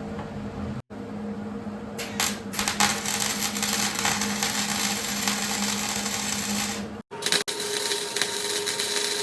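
Power tools running in a workshop. A low steady hum, then from about two seconds a loud, harsh tool noise with rough spikes. It breaks off suddenly at about seven seconds and gives way to another tool noise with a high steady whine.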